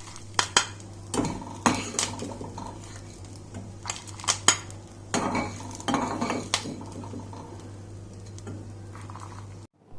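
Metal spoon scraping and clinking against a pan, with a dozen or so sharp taps and scrapes, as dry-roasted whole spices are scraped out of it.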